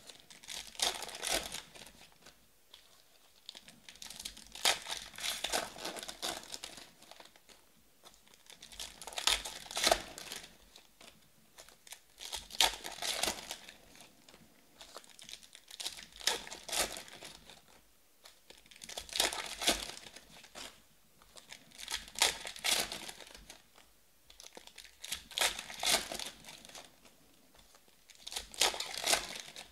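Foil trading-card packs being torn open and their wrappers crinkled by hand, in bursts about every three seconds.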